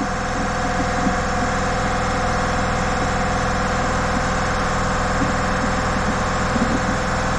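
Air compressor running in the workshop: a steady, unbroken machine drone with a couple of constant tones over a fast even low pulsing.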